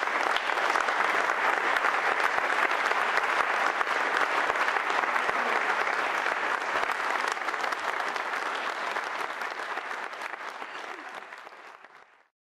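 Audience applauding, a steady crowd of clapping that fades away near the end.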